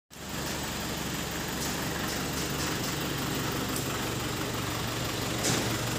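Light tow truck's engine idling steadily, with a few faint ticks.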